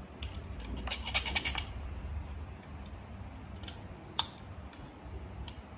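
Light metallic clicking and rattling of steel tweezers working against the removed front cover of a Jack five-thread overlock sewing machine: a quick run of clicks about a second in, then a few single clicks, the sharpest about four seconds in.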